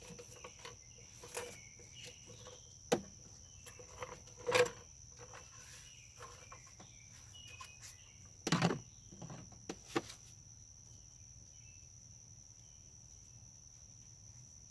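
Scattered clicks and knocks of hand tools and loosened engine parts being handled, the loudest about four and a half and eight and a half seconds in, stopping around ten seconds in. Insects trill steadily and high-pitched underneath.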